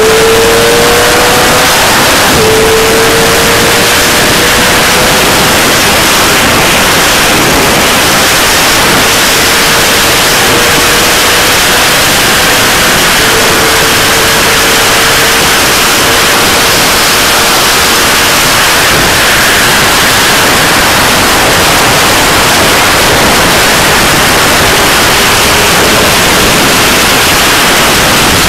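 Steady, loud wind roar on a phone microphone carried by a passenger on a fast-moving motorcycle, with the engine note of a 2006 Yamaha YZF-R6's inline-four through a Remus aftermarket exhaust faintly beneath it. The engine note climbs slowly in pitch, breaking off about two seconds in and again in later stretches.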